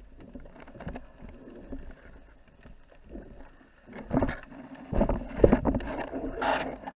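Water movement and handling knocks heard underwater, with scattered clicks, then louder swishing bursts from about four seconds in as the camera nears the surface.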